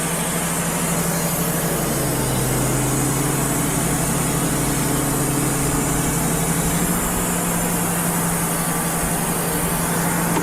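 Wood-Mizer LT35 HD portable sawmill's diesel engine running steadily; its pitch drops for about five seconds in the middle, then comes back up.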